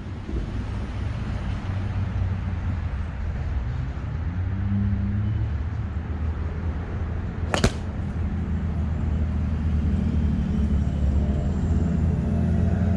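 A steady low engine drone in the background, and about seven and a half seconds in a single sharp crack of a golf club striking the ball.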